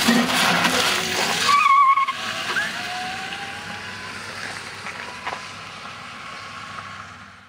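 A 1969 Mini converted to electric drive passes close by, heard mostly as tyre and road noise rather than an engine. The noise is loudest in the first two seconds, with a brief wavering whine about one and a half seconds in, then eases off and fades as the car moves away.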